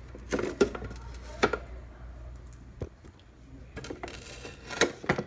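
Hands pulling packing tape off a plastic single-serve coffee maker and handling its casing: a scatter of short clicks, crackles and light knocks at irregular intervals.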